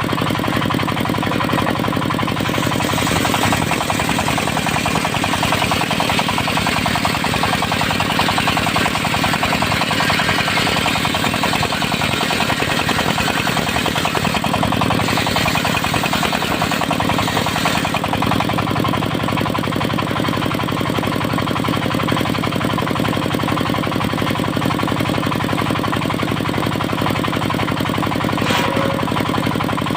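Diesel engine of a portable circular-saw sawmill running steadily with a fast, knocking beat. From about three seconds in until about eighteen seconds, a brighter, harsher noise rises over it.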